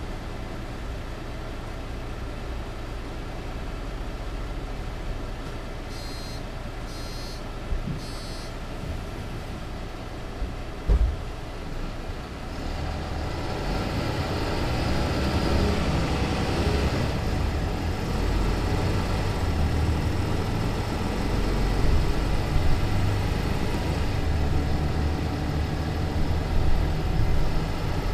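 Mercedes-Benz Citaro C2 LE city bus heard from inside the passenger cabin: a steady low running sound with three short high electronic beeps about six to eight seconds in and a sharp knock just before the halfway point. From about twelve seconds in, the engine and drive grow louder and stay louder.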